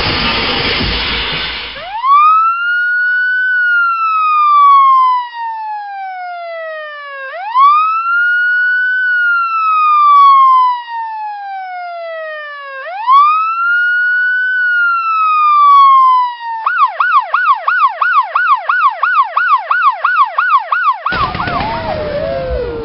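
Electronic emergency-vehicle siren: after a couple of seconds of noise, three slow rising-and-falling wails, then a fast yelp at about three cycles a second. Near the end a burst of noise comes in and the pitch falls away.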